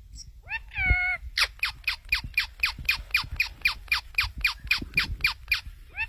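A rose-ringed parakeet (Indian ringneck) calling: one drawn-out call, then a fast run of short, falling squawks, about five a second, lasting about four seconds.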